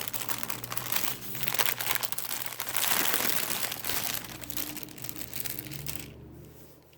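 Loud crinkling of packaging as mini skeins of yarn are pulled out of a subscription box, fading away about six seconds in.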